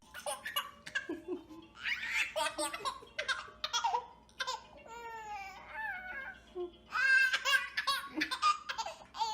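High-pitched laughter in repeated bursts, loudest a little past the middle.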